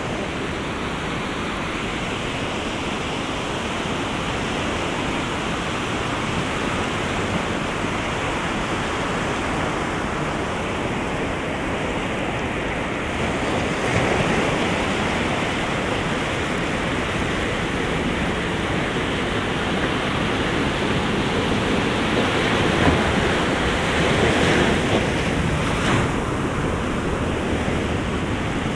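Ocean surf washing steadily on the shore, with waves breaking louder about halfway through and again near the end.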